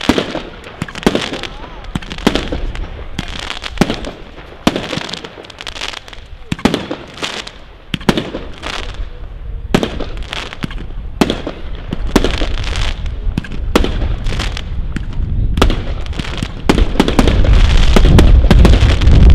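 Firework cake ('Schorpioen') firing a rapid series of shots, about one to two a second: sharp reports as each shot goes up and opens, with crackling and fizzing between them. It grows much louder near the end, with a heavy low rumble.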